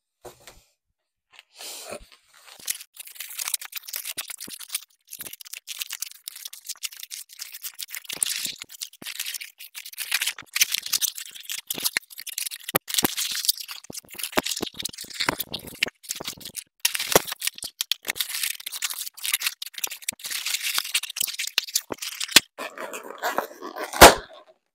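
Inflated latex balloons rubbing and squeaking as they are twisted into balloon flowers, a dense run of crackles and clicks. Near the end a balloon bursts with a single loud pop.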